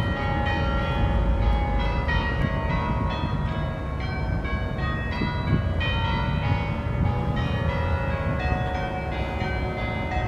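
Church bells ringing, many strokes overlapping and ringing on, over a steady low rumble.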